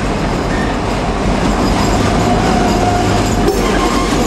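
V/Line N class diesel-electric locomotive running past at low speed, its EMD two-stroke V12 diesel engine rumbling steadily over the rattle and clicking of wheels on rails and points. A thin steady tone rises above the noise for about a second, midway through.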